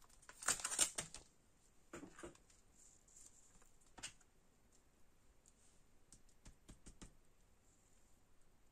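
Faint scattered taps and clicks of a rubber stamp and paper being handled on a tabletop while postmark lines are stamped onto a watercolour-paper postcard: a cluster in the first second, single taps around two and four seconds in, and a quick run of light taps near the end.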